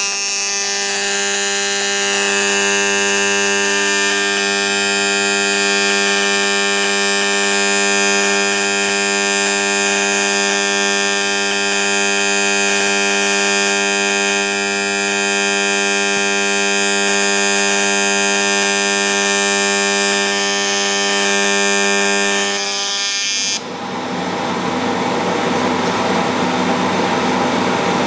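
AC TIG welding arc on the aluminium Lamborghini V10 engine block, giving a steady, high-pitched electric buzz with many even overtones. The welder is run at high current and a raised AC frequency for more cleaning action. About 23 seconds in, the buzz turns rougher and hissier.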